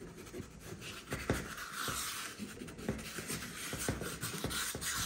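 Compressed charcoal stick scratching and rubbing across drawing paper in fast, loose sketching strokes, rising and falling with each stroke, with a few sharper ticks.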